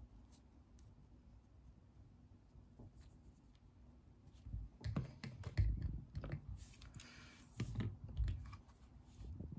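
Handling noise of small parts: scattered light clicks and soft knocks, with a brief rustle, as the wick is fitted into the alcohol burner's brass holder and the engine's wooden base is handled. Faint for the first half, then busier toward the end.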